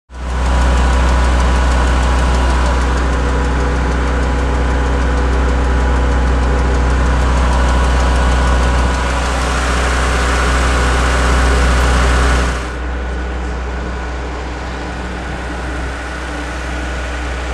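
Engine idling steadily with a heavy, deep hum. It drops somewhat in level about twelve and a half seconds in.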